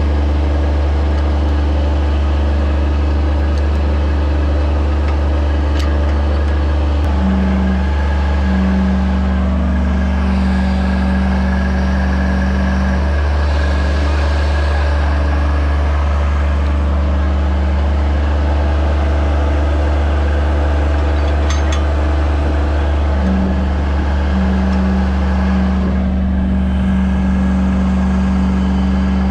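Mini track loader's engine running steadily. A higher hum comes in twice for several seconds, about a quarter of the way through and again near the end, while the bucket lifts a stone step hung from a chain clamp.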